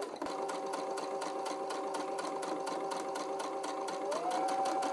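Brother Innov-is VQ4 computerised sewing machine stitching a zipper onto fabric: a steady motor whine with rapid, even needle ticks. Just after four seconds in the machine speeds up, the whine stepping up in pitch and getting a little louder.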